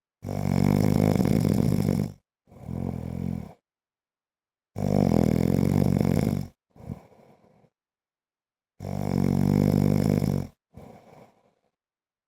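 A man snoring in a steady breathing rhythm: three loud, rattling snores of about two seconds each, roughly four seconds apart, each followed by a shorter, softer snore.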